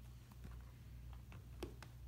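Cardboard box handled and turned over in the hands: a few light taps and knocks of fingers and box, the loudest about one and a half seconds in, over a low steady hum.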